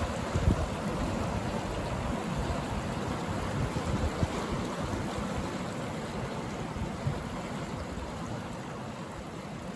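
Steady rushing noise, slowly growing fainter toward the end.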